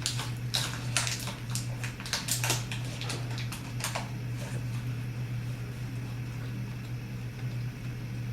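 Crinkling and clicking of a plastic snack bag being handled, dense for the first few seconds and then dying away, over a steady low electrical hum.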